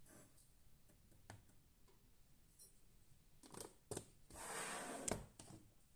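Quiet handling of a spoon, a sugar container and a glass jar on a counter: mostly near silence with a few faint clicks, then a brief rustling scrape of under a second about four and a half seconds in.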